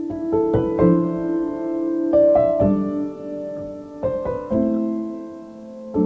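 Soft background piano music: sustained chords struck every second or so, without percussion.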